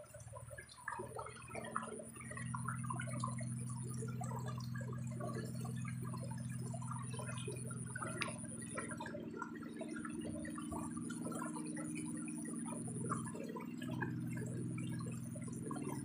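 Water splashing and dripping in many small irregular splashes, over a steady low hum that sets in about two seconds in.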